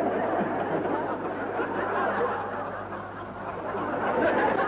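Studio audience laughing, dipping briefly about three seconds in and swelling again near the end.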